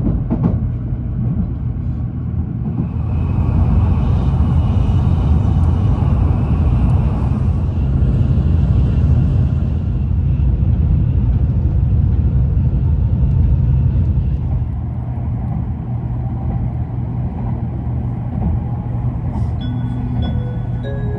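Nozomi shinkansen train running: a steady low rumble, growing louder and hissier from about 3 to 10 seconds in, then settling. A few short tones begin near the end.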